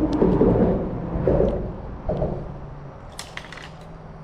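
Close-up crunching and rustling handling noise as a hooked panfish is brought in, loudest in the first two seconds, then a quick run of sharp clicks about three seconds in.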